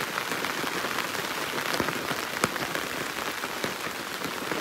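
Rain falling steadily on a taut tarp overhead, a constant hiss with single heavier drops ticking sharply now and then.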